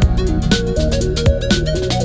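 Electronic background music with a steady beat: a kick drum about twice a second and regular hi-hat ticks under a stepping melody.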